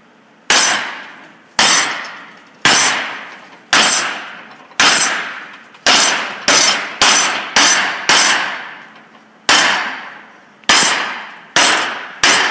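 About fifteen hammer blows on an aluminum plate brazed with HTS-735-II rod and clamped in a vise, each a sharp metallic strike that rings and dies away. The blows come about a second apart, quicker in the middle, bending the plate over as a strength test of the brazed butt joint.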